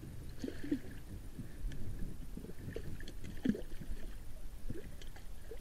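Water slapping and gurgling against an inflatable boat, with irregular soft knocks and thin clicks.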